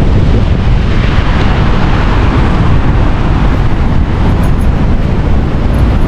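Wind buffeting the microphone in a loud, steady rumbling rush, mixed with the roar of Niagara Falls.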